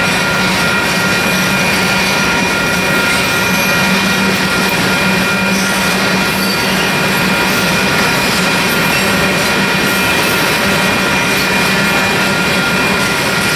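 Covered hopper cars of a grain train rolling past: steel wheels on the rails make a steady rumble, with a thin, steady high squeal from the wheels.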